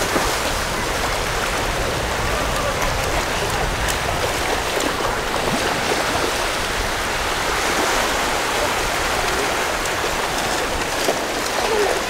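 Shallow sea water splashing steadily as small children wade and run through it, with small waves washing in around them.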